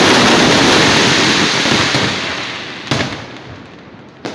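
Fireworks display: a dense, even crackle of many bursts that fades over the second half, with a sharp bang about three seconds in and another at the very end.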